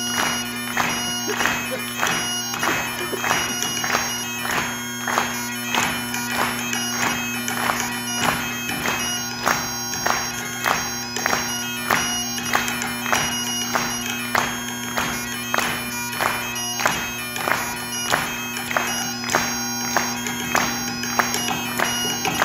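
Bagpipes playing a tune over steady drones, with a drum struck with sticks keeping a regular beat.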